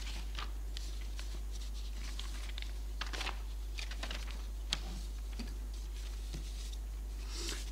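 Quiet room tone: a steady low hum with scattered faint clicks and rustles.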